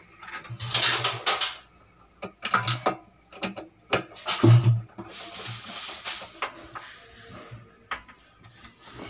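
Hand screwdriver driving screws into the steel frame of a corner-cabinet pull-out unit: irregular metallic clinks, clicks and scraping as the tool and screw bite against the metal, in several short clusters.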